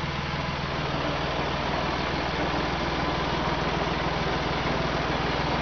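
1948 Duvant RF stationary engine running steadily with an even, fast beat, newly restarted after some thirty years standing unused.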